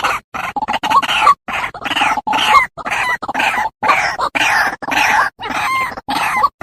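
White-breasted waterhen calling: a rapid run of harsh, croaking 'kru-ak' notes, about two a second, each with a quick bend in pitch.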